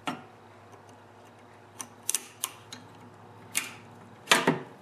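Pliers working a spring clamp back onto the rubber fuel line at a lawnmower carburetor inlet: a handful of light metallic clicks and taps, with the loudest and longest near the end.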